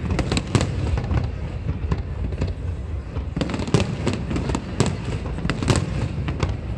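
Fireworks display going off: a rapid, irregular string of bangs and crackling bursts, several a second, over a steady low rumble of shells.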